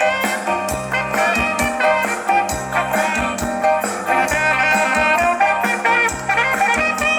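A band playing an instrumental passage, with a steady drum beat under held and moving instrument lines.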